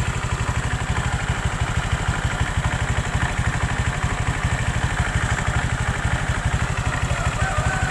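Honda Vario 125 scooter's single-cylinder engine idling steadily with an even pulse.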